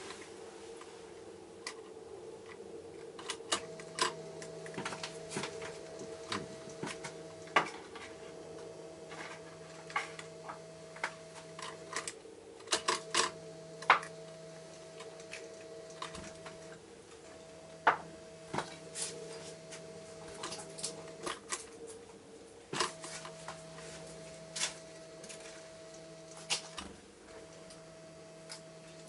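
A varied tit tapping and pecking at a plastic seed feeder: sharp, irregular clicks, several in quick runs. Under them, a low electrical hum switches on for about four seconds at a time with short breaks.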